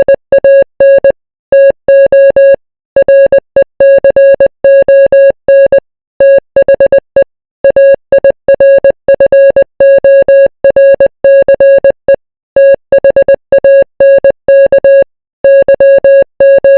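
Morse code sent as an electronic beep of one steady pitch, keyed on and off in quick short dots and longer dashes with brief gaps between characters.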